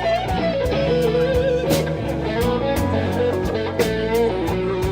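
Blues band playing a slow blues: an electric guitar fill of bent, wavering single notes between vocal lines, over bass and drums.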